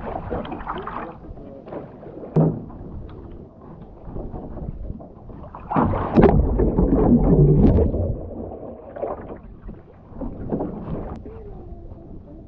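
Paddle strokes and water lapping against a kayak, with a sharp knock about two seconds in. From about six seconds in to about eight there is a loud rush of splashing water as the kayak heels over onto its side and comes back up.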